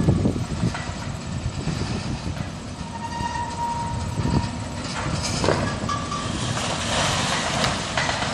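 Wrecking-ball demolition of a brick building: a steady mechanical rumble from the crane with irregular knocks and clattering, loudest right at the start. A short whine comes about three seconds in.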